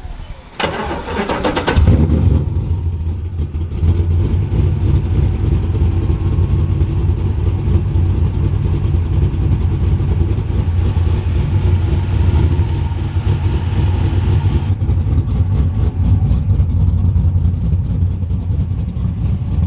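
A Chevy single-cab pickup's V8 with a stage 3 cam, cold-started after sitting for weeks: the starter cranks briefly, the engine catches about two seconds in and settles into a loud, choppy cammed idle that sounds hollow.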